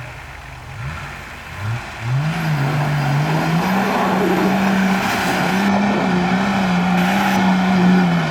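Off-road 4x4's engine revving hard under load: its pitch climbs about two seconds in, then stays high, wavering up and down as the throttle works.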